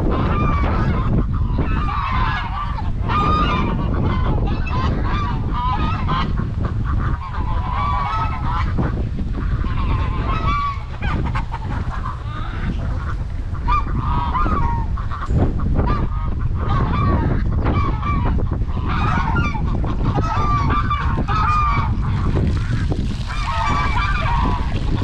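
Geese honking again and again, a call every few seconds, over heavy wind buffeting the microphone.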